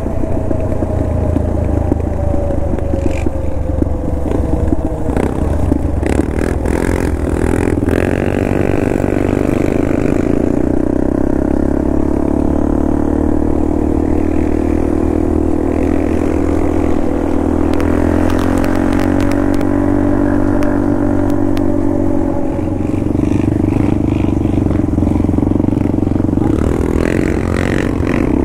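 A vehicle engine running steadily under way, its pitch rising and falling slowly as the revs change, with scattered knocks and clatter.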